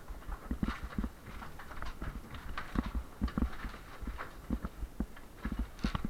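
Irregular dull thuds and sharper knocks, one to a few a second, typical of demolition blows against damaged interior partition walls.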